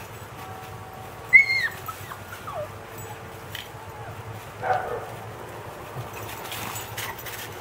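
Siberian huskies at play: a high-pitched whine about a second and a half in that slides down in pitch, then a shorter, rougher yelp near five seconds.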